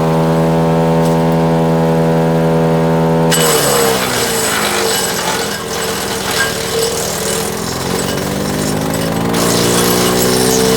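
Split-Fire 4090 wood chipper's engine running at a steady speed, then about three seconds in dropping in pitch and bogging under load as a wild cherry limb is chipped, with a loud noisy grinding of wood. Near the end the engine speed climbs back up as the load eases.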